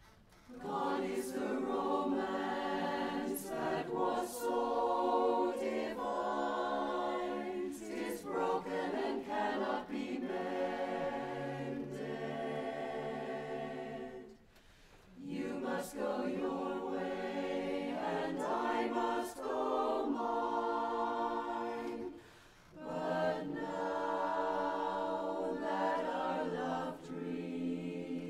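Mixed-voice barbershop chorus of men and women singing a cappella in close harmony, coming in about a second in, with two short breaks between phrases.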